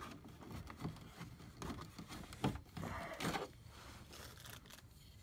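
Hard plastic parts scraping and clicking as the portable air conditioner's exhaust hose connector is handled and pushed into place, with a couple of louder scrapes about halfway through.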